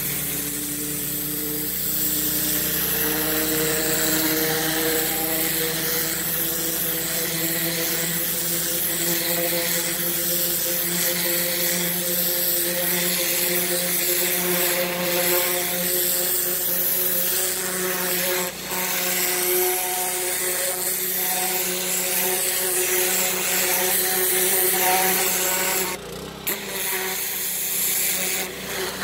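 Gas engine of a Yamaha-powered Powerstroke pressure washer running steadily, with the hiss of the high-pressure water spray over it. The sound dips briefly near the end.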